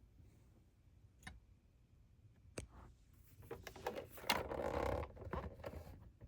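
Two separate sharp clicks, then a cluster of clicks and rustling, loudest a little past the middle.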